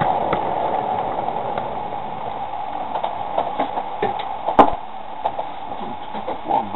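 O gauge model train running along the track, its steady running hum fading as it slows to a stop. It is followed by a few light clicks and one sharp knock about two-thirds of the way through.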